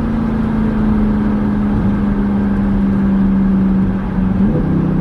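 Car engine droning steadily under way, heard from inside the cabin, with a brief rise in pitch about four and a half seconds in.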